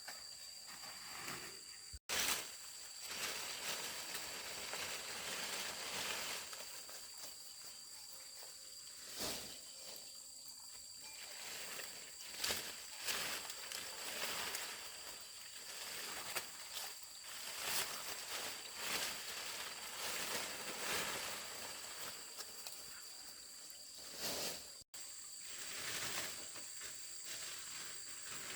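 Irregular rustling and light knocks, as of handling or working by hand, over two steady high-pitched tones. The sound drops out briefly twice.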